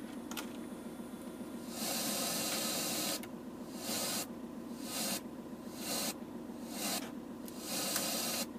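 Car radio hissing with FM static in short bursts as its buttons are pressed and it tunes without finding a station: a longer burst about two seconds in, then shorter ones about once a second and a longer one near the end. A steady low hum runs underneath.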